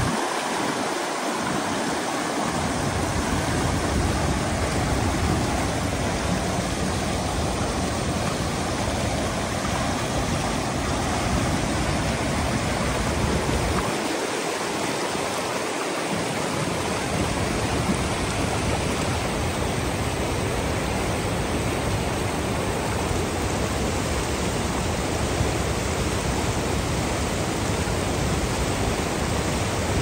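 Whitewater rapids rushing steadily over rock slabs at the head of a waterfall.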